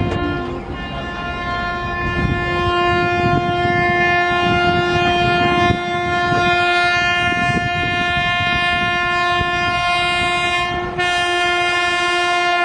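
Air horn of an oncoming Indian Railways electric locomotive hauling a Rajdhani Express, held in one long unbroken blast as a warning to people standing on the track. It gets brighter about eleven seconds in as the locomotive closes in and falls in pitch at the very end as it passes, over the rumble of wheels on the rails.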